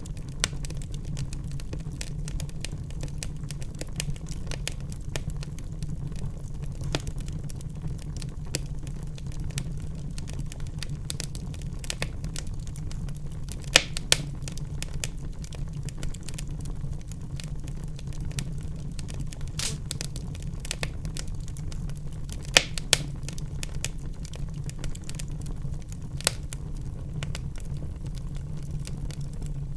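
Wood fire burning in a fireplace: a steady low rumble of flames with scattered sharp crackles and pops, a few louder pops about a third and three quarters of the way through.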